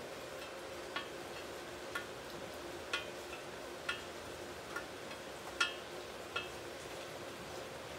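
Sharp metallic ticks, each with a short ring, about one a second, over a steady low hum. The electrode is not arcing.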